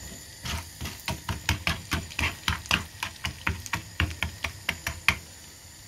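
Wooden spatula knocking repeatedly against a metal frying pan, beating Skittles in bubbling butter and sugar. The knocks come about four a second, irregularly, and stop about five seconds in.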